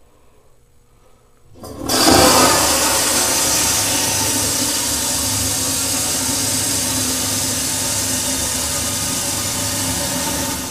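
Stainless steel toilet flushing: a sudden loud rush of water starts about a second and a half in and runs on steadily, flushing with a lot of water.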